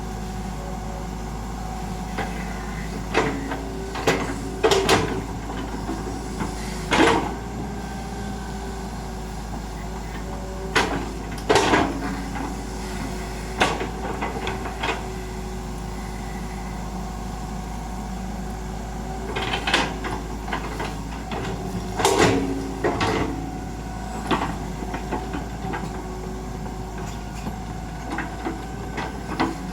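Excavator working: its engine runs with a steady hum while irregular loud metal clanks and knocks come in clusters from the machine at work.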